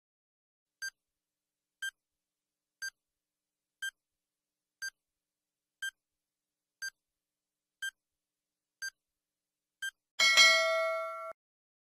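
Quiz countdown-timer sound effect: ten short ticks, one per second, then a louder ringing chime of several tones for about a second as the timer reaches zero.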